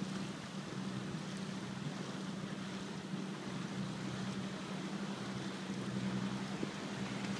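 A boat's engine running with a steady drone, under a haze of wind and water noise.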